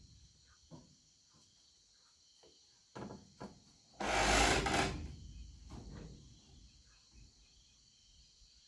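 A few short wooden knocks and one loud rasping scrape of about a second, over a steady high chirring of insects.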